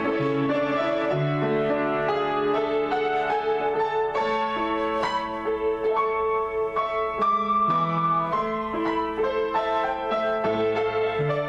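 Solo piano improvisation: a continuous flow of chords with a melody line on top, notes ringing into one another.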